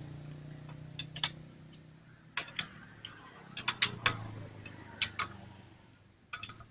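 Scattered sharp metallic clicks and taps of hand tools working the bolts on a motorcycle engine's magneto cover as they are tightened, irregularly spaced, about a dozen in all.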